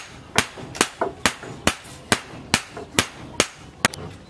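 Hand hammer striking red-hot leaf-spring steel on an anvil, forging a billhook blade: sharp, ringing blows at a steady pace of a little over two a second.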